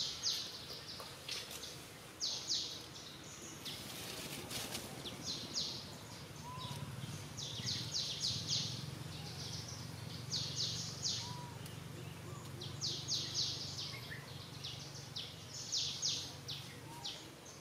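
A bird calling over and over: quick runs of three or four high, sharp chirps every second or two. A low steady hum joins in about a third of the way through.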